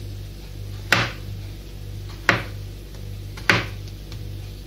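Kitchen knife slicing through a porcini mushroom cap and striking a plastic cutting board, three sharp chops a little over a second apart.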